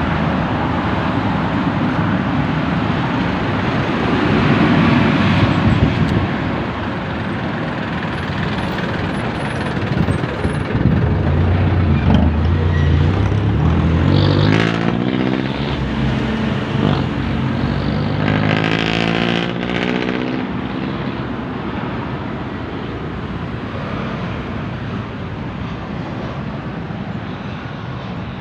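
Road traffic passing. About halfway through, one vehicle's engine note climbs in pitch in steps as it accelerates through the gears, then fades away.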